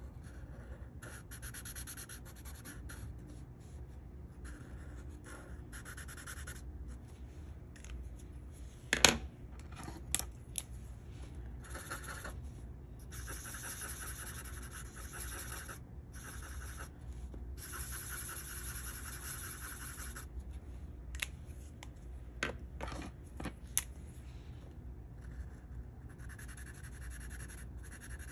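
Sharpie fine-point marker tips scratching across paper in repeated coloring strokes of a second or more, with pauses between. A few sharp clicks and taps cut in, the loudest about nine seconds in.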